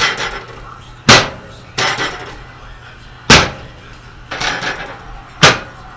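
Three sharp, loud knocks about two seconds apart from a chiropractic adjusting table as lumbar adjustment thrusts are delivered.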